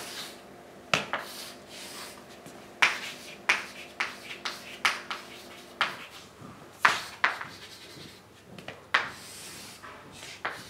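Chalk on a blackboard: irregular sharp taps and short scratchy strokes as words are written and lines drawn.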